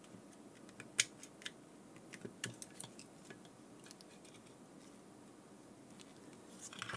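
Small screwdriver prying at the metal retaining hook of a Garmin StreetPilot C340's screen frame: a few light clicks and scrapes of metal on metal over the first few seconds, the sharpest about a second in, then only faint room tone.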